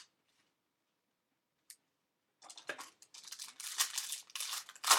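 A baseball card pack's wrapper being torn open and crinkled, starting about halfway through after a faint click or two.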